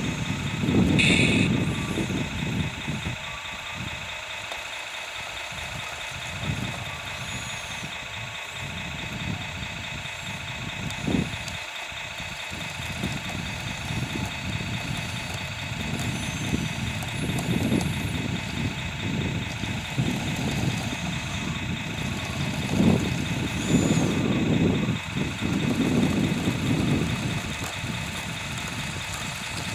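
Radio-controlled tracked loader at work pushing dirt: a steady high whine runs throughout, with surges of lower motor and gear noise that swell and fade as it drives and pushes.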